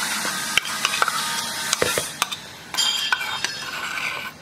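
Renovation work by nearby workmen: a steady hissing machine noise with scattered knocks and taps, easing about two seconds in, then a brief machine whine.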